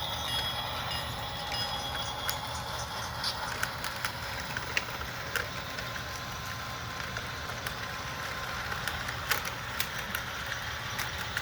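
An HO scale Atlas Dash 8-40CW model locomotive's DCC sound decoder plays a steady diesel engine sound through the model's small onboard speaker as it pulls away, with scattered faint clicks over it.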